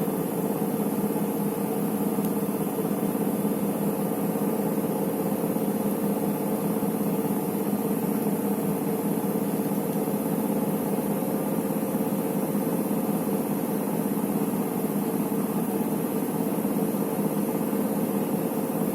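Electrolux EWT 1377 VIW washing machine spinning with a steady motor hum that does not change. The fault is that it fails to finish its cycle and keeps on spinning instead of stopping.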